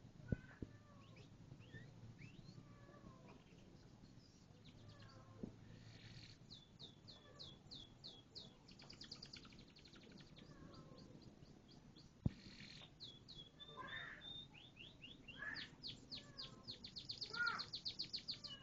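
Canary singing: faint chirps, then fast trills of rapidly repeated high notes that grow louder toward the end. Two sharp clicks, one near the start and one about twelve seconds in.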